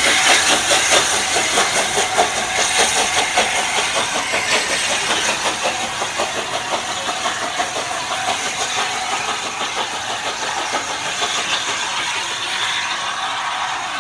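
BR Standard Class 8 steam locomotive 71000 Duke of Gloucester, a three-cylinder Pacific, pulling a train away: its exhaust beats come quickly and evenly and slowly fade as it draws off.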